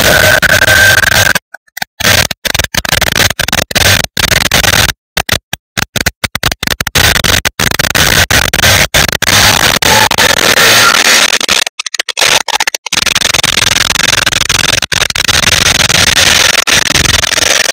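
Heavily noise-filtered recording of a supercharged 3.0-litre V6 in a 2016 Audi S4 with an aftermarket intake, running on the road. It is a harsh, loud rushing noise that cuts out abruptly many times, with a faint whine in the first second.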